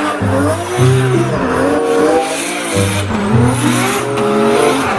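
Background music: a low bass note repeating in a steady pattern under a lead line that glides up and down in pitch.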